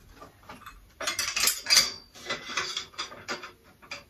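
Irregular metallic clinks and knocks of a steel IKEA Råskog cart's basket and side frames being handled and fitted together, busiest from about a second in.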